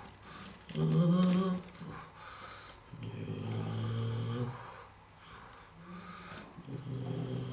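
A person making vehicle noises with their voice for toy cars: a loud wavering hum about a second in, then a steady low droning hum twice, the second starting near the end.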